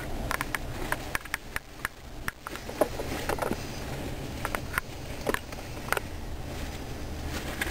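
Train wheels clicking irregularly over rail joints and switches, over a steady low rumble, heard through a car window.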